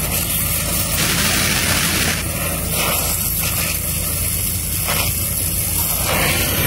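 Gas welding torch flame burning with a steady hiss as it heats the seam between two steel sheets, with a steady low hum underneath.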